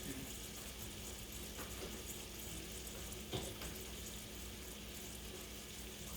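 Sliced potatoes frying in oil in a pan, a steady faint sizzle, with a light click a little past halfway.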